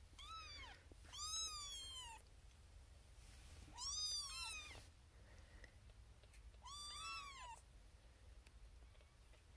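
Newborn Siamese kitten meowing four times: thin, high cries that rise and fall in pitch, each up to about a second long and a couple of seconds apart, the first one short and faint. A tiny kitten crying for attention.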